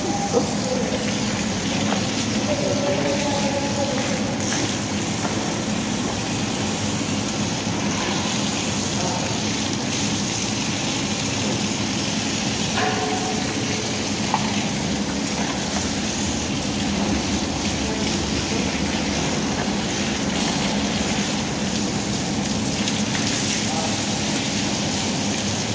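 Steady slaughterhouse hall din: a constant low hum under an even rushing hiss, with faint voices now and then.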